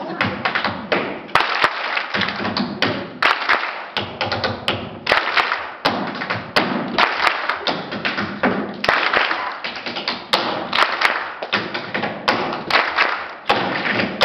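A group of performers stamping on a stage floor, with claps and body slaps, in a fast, dense rhythm of thumps and taps.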